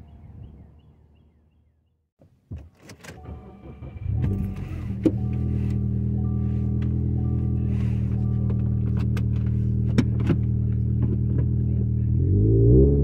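Subaru Crosstrek flat-four engine with a Nameless Executive axleback exhaust, heard from inside the cabin. It starts about four seconds in and idles steadily while a chime beeps about once a second, then is revved briefly near the end.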